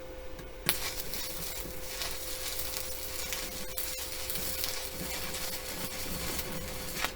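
Stick welding arc from an inverter welder on the steel mower deck: the arc strikes with a sharp crack about a second in, then crackles and sizzles steadily for about six seconds and breaks off near the end as the rod is pulled away.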